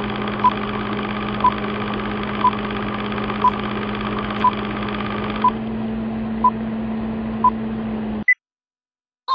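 Film-leader countdown sound effect: a steady projector-like whirr with a short beep once a second. It ends in a single higher beep about eight seconds in, then cuts off suddenly.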